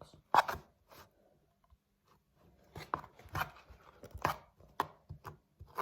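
A spoon knocking and scraping against a dish while brownie batter is spooned and spread: one sharp knock about half a second in, then a pause, then a run of irregular knocks and scrapes in the second half.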